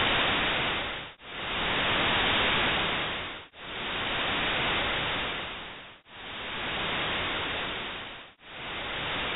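Infrasound from Cotopaxi volcano made audible as white noise modulated by the signal: a hiss that swells and fades in even pulses about every two and a half seconds, slowly getting quieter. The pulses trace the air resonating in the volcano's deep, narrow crater like a pipe organ.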